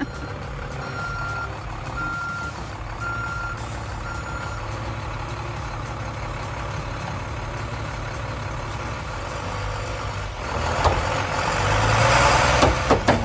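A bus's reversing alarm beeps four times, about once a second, over its engine running steadily. From about ten seconds in, the engine revs up louder, straining as the bus pulls on a tree, with a couple of knocks near the end.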